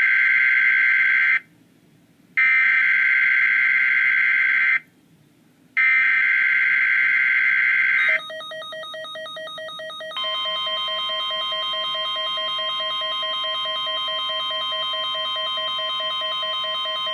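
NOAA Weather Radio test signal played through a receiver's speaker: three bursts of screeching SAME digital header tones, each about two seconds long, with a brief silence between them. After the third burst a pulsing beep starts, and about two seconds later the steady 1050 Hz warning alarm tone comes in under it and holds.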